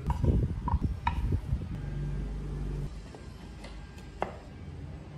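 Solid wooden workpieces being handled on a workbench: a cluster of knocks and rubbing as the pieces are shifted and set down, then a few light clicks. A brief low hum sounds about two seconds in.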